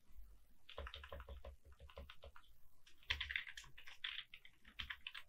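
Computer keyboard typing: quick runs of faint key clicks that start about a second in and get denser about halfway through.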